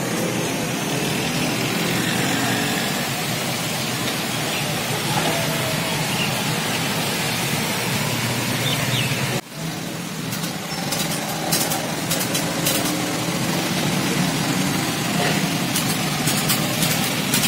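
Small Honda motorcycle engine running in heavy rain, a bike that has begun cutting out after getting wet. After a cut, motorbike engines run in the rain as bikes ride through floodwater, with scattered sharp taps later on.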